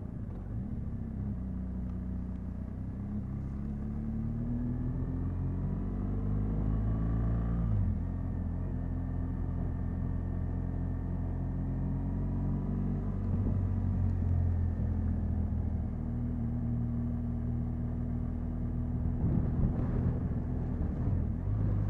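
Motorcycle engine under way: its revs climb steadily for several seconds, drop sharply about eight seconds in, then hold fairly steady at cruising speed, with a low rumble underneath.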